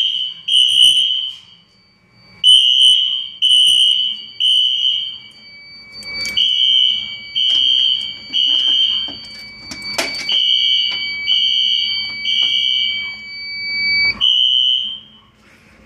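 Fire alarm horns sounding in the temporal-three evacuation pattern: three loud half-second blasts, a pause, then the next three, about every four seconds. A steady high tone runs underneath and cuts off near the end.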